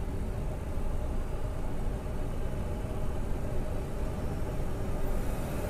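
Car driving along a city road: a steady engine and road rumble, with a brighter hiss coming in about five seconds in.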